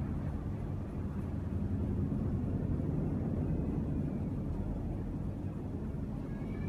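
Steady low background rumble, with a few faint, brief high whistling tones near the middle and the end.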